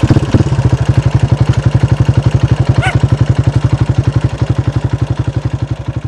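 Yamaha Raptor 700R quad's single-cylinder four-stroke engine idling with a rapid, even thumping, growing quieter near the end. A short squeak about three seconds in.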